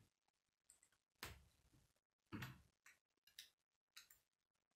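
Plastic K'nex rods and connectors clicking and knocking as they are handled and snapped together, a handful of sharp clicks spaced roughly a second apart.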